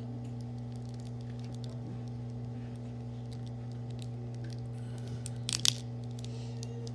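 A steady low hum runs throughout, with scattered faint clicks and a brief crackling, rustling burst a little over five seconds in.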